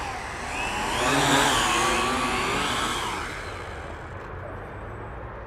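Small quadcopter drone's electric motors and propellers whining, the pitch wavering up and down as the throttle changes; loudest about a second in, then fading away as the drone comes down onto the snow.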